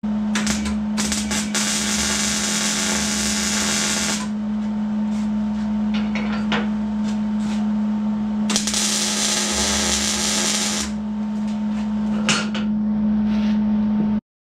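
MIG welder laying beads on sheet steel: two runs of steady arc crackle and hiss of a couple of seconds each, with a few short tacks between, over a steady low hum.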